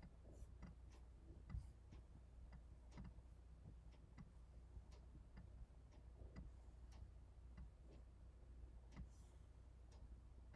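Near silence with faint, irregular computer mouse clicks, a few a second, over a low steady hum.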